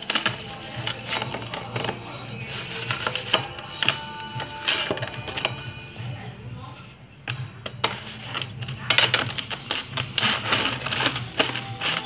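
Brass altar pieces being scrubbed and handled by hand in a plastic basin of vinegar-and-salt water: repeated clinks and scraping of metal, with music in the background.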